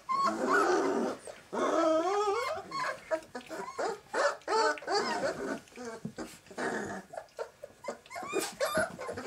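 A litter of 19-day-old Great Dane puppies calling while they play: many short, high calls that rise and fall, often overlapping.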